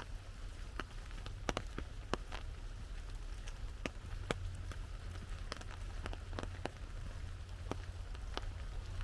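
Single raindrops striking an umbrella overhead, sharp separate taps at irregular intervals, about one or two a second, over a light steady rain hiss and a low rumble.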